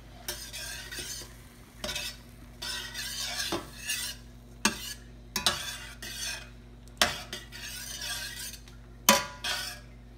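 A spoon stirring chicken and onions in a cooking pot, scraping through the food with sharp knocks against the pot every second or two and a frying sizzle underneath.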